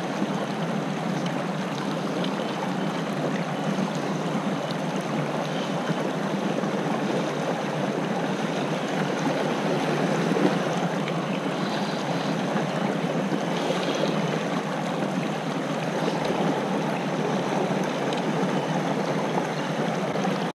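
Steady sound of shallow water running over rocks, close to the microphone.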